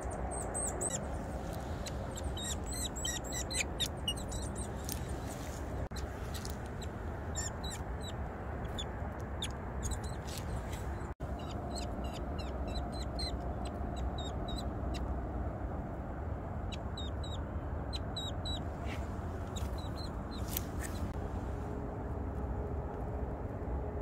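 Eurasian nuthatches and other small wild songbirds calling, many short high chirps coming in quick runs through the whole stretch, over a steady low rumble.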